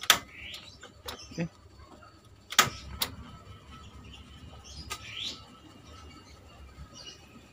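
Single-burner gas stove being lit: sharp clicks of the ignition knob, one at the start, two about half a second apart between 2.5 and 3 seconds, and one more near 5 seconds, as the burner catches.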